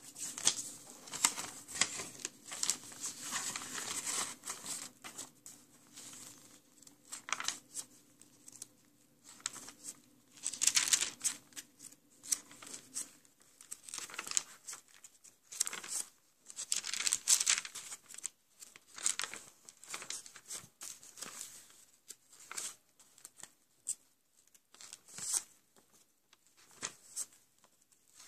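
Paper pages of a sketchbook being flipped by hand one after another, rustling and flapping in irregular bursts that come in louder clusters near the start, about a third of the way in, and just past the middle.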